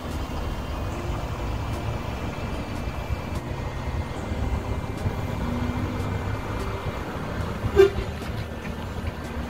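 Diesel engine of a Volvo semi-truck pulling an empty car-hauler trailer, running steadily as the rig drives away, with one short horn toot about eight seconds in.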